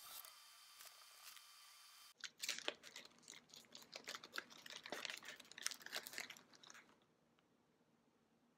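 A plastic snack packet crinkling and tearing in the hands: a rapid, irregular crackle that starts about two seconds in and lasts some five seconds.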